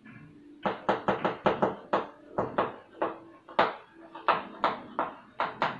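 Chalk writing on a blackboard: a quick, irregular run of short taps and scratchy strokes as the letters are written.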